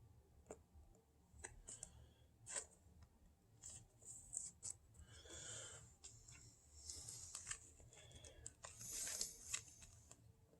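Faint clicks and soft rustles of trading cards being handled and flipped through, a few brief sliding rubs in among the clicks.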